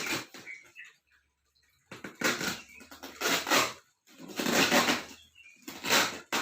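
Plastic shipping bags rustling and crinkling as they are handled, in several bursts of about a second each with short pauses between.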